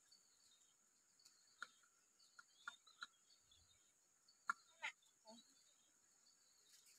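Near silence: a faint steady high hiss with a handful of scattered sharp crackles and knocks from a wood campfire burning and bamboo tubes being set against it, the loudest about halfway through.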